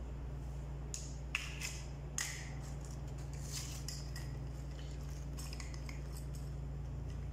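Ice cubes clinking and scraping in a few short bursts as a refrigerator thermostat's capillary bulb is pushed down into them, over a steady low hum.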